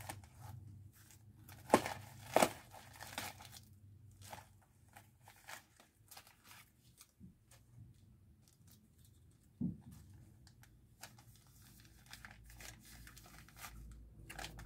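Paper and plastic packaging crinkling and tearing as a package is unwrapped by hand, with two sharp snaps about two seconds in and another near ten seconds.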